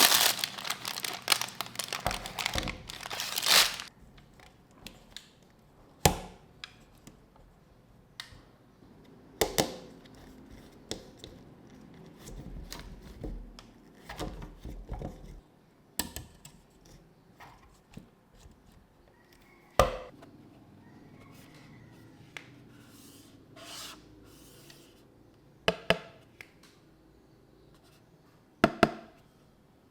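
Plastic packaging crinkling and rustling for the first few seconds, then scattered sharp clicks and knocks of things being handled, with quiet gaps between.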